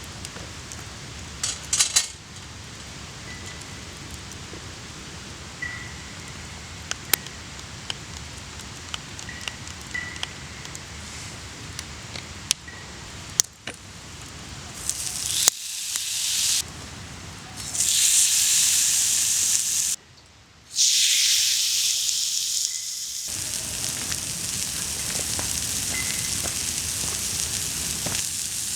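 Wood campfire crackling with sharp pops, then from about halfway a steak sizzling loudly on a hot iron griddle plate. The sizzling starts and stops abruptly several times.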